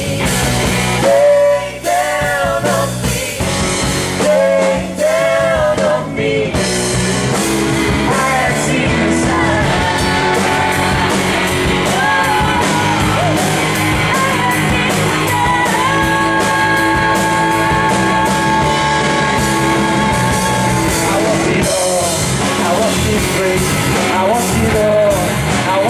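Live band playing rock music. For the first few seconds there are wordless sung or wailed vocal lines, then an instrumental passage of held notes over a steady drum beat.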